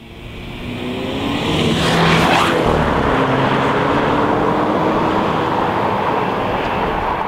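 A car engine sound effect for a logo intro: the engine's pitch rises slowly as it accelerates, with a loud whoosh about two seconds in, then it runs on steadily with heavy road and exhaust noise.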